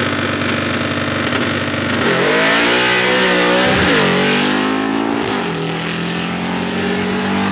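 Drag-racing cars' engines rumbling at the starting line, then launching hard about two seconds in. The engine revs climb and fall back twice at the gear changes, then hold steadier as the cars run away down the strip.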